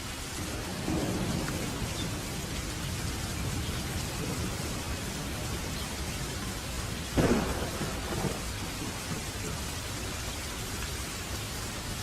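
Steady rain falling, with thunder: a low rumble swells about a second in, then a louder, sharper thunderclap about seven seconds in rolls on for a second or so.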